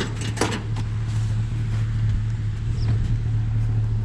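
Pickup truck engine and road noise, a steady low drone, with a few sharp knocks or rattles in the first second.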